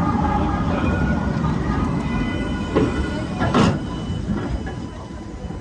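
Alstom Citadis 304 low-floor tram running on rails: a steady low rumble with a faint whine, and two sharp knocks a little past halfway through.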